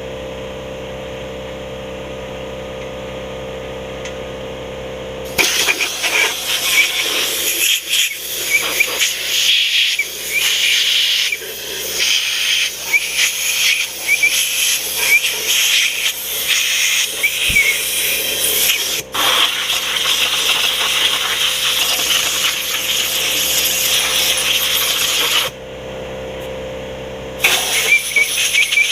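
Pressure washer running with a steady hum, then its high-pressure water jet blasting and hissing against the bare cast-iron engine block from about five seconds in. The spray breaks off briefly near the end, leaving the hum, then starts again.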